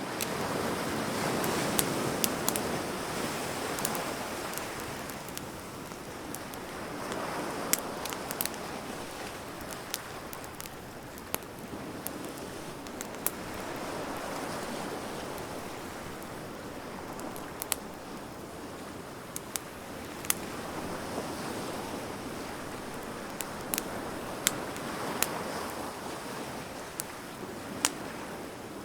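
Wood bonfire crackling, with frequent sharp pops and snaps, over surf that washes in and out in slow swells every several seconds.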